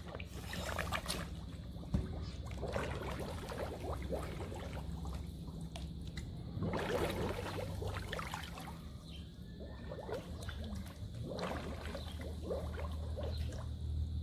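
Muffled water sloshing and bubbling heard through a camera held underwater, with several bursts of bubbles from a scuba diver's regulator as she breathes out.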